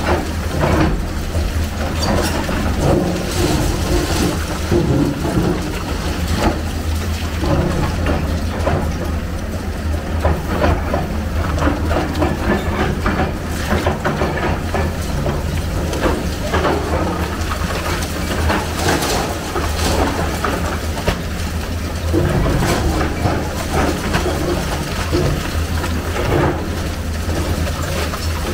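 Hyundai hydraulic excavator's diesel engine running steadily under load, with frequent irregular cracks and clatter of concrete breaking and debris falling as the bucket tears into a building wall.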